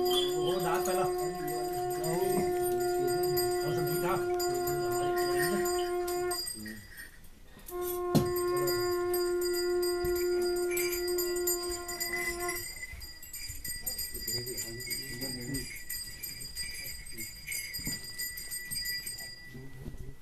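A conch shell blown in two long steady blasts with a short breath between, the second ending about twelve seconds in, over bells ringing steadily.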